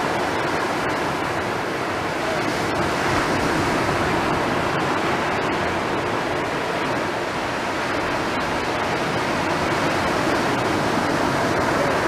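Steady rushing noise of sea surf on a beach, even and unbroken.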